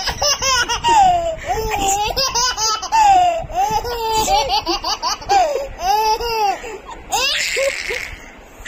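Baby laughing in repeated high-pitched bursts of giggles, with a short breathy noise about seven seconds in.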